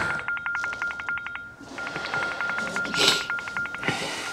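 Mobile phone ringing: a fast-trilling electronic ringtone on one high pitch, in bursts of about two seconds with short breaks.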